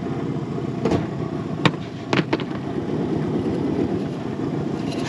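Outboard motor idling steadily, with a few sharp knocks about one and two seconds in as the crab pot is hauled aboard.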